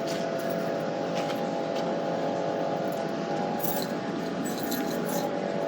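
Steady mechanical hum holding several fixed tones, with a few faint light metallic clinks over it.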